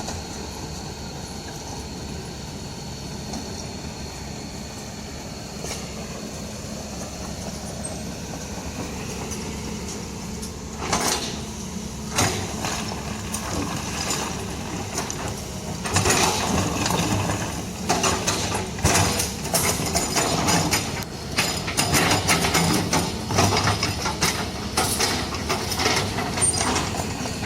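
A motor vehicle engine running steadily, joined about eleven seconds in by irregular rattling and knocking that grows louder and busier for the rest of the stretch.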